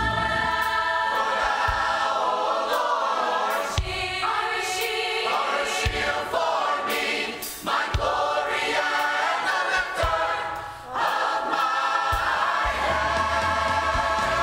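A choir sings a song over instrumental accompaniment, with a beat struck about every two seconds.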